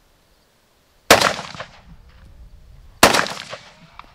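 Two single rifle shots from a North Korean Type 68, an AKM-pattern 7.62×39mm rifle fitted with a plain muzzle nut instead of a slant brake. The shots come about two seconds apart, and each is followed by a short echo that dies away.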